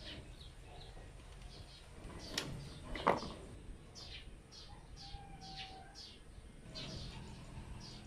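Small birds chirping in the background: a run of short, falling chirps. About two and a half and three seconds in come two sharp clicks, the loudest sounds, from pliers and plastic outlet parts being handled.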